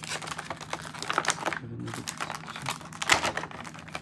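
Hard plastic action-figure parts and skateboard being handled, giving a run of irregular clicks and taps as the figure is fitted onto the skateboard.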